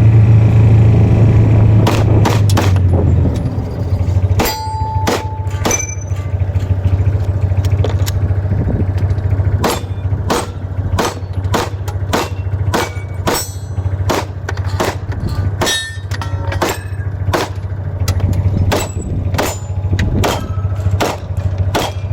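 Handgun fired in a long string of about thirty shots, roughly one to two a second, many answered by the ring of steel targets being hit. A vehicle engine hums underneath, heavier for the first few seconds.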